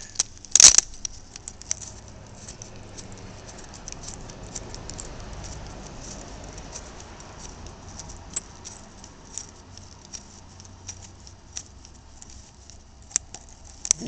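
Small irregular metal clicks and rattles of a socket and bolt being handled while the clamp bolt of a car battery's negative cable connector is unscrewed, with one sharper click about a second in.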